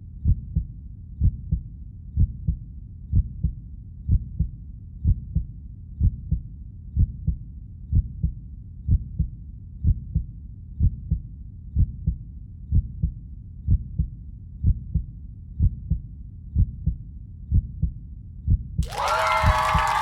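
A heartbeat, a steady double thump (lub-dub) repeating about once a second. Near the end, music with a cheering crowd comes in over it.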